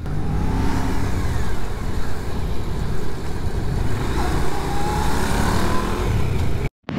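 Vespa scooter engine running under way, with wind rushing over the microphone and other motorcycles' engines close by. The sound cuts out for a moment near the end.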